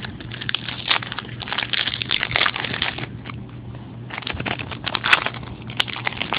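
Crinkling and crackling of a trading-card pack's wrapper being torn open and handled, with cards rustling, in a quick irregular run of crackles. A low steady hum sits underneath.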